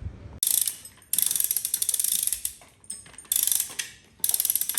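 Hand chain block hoisting an engine, its ratchet pawl clicking rapidly as the hand chain is pulled, in several runs with short pauses between.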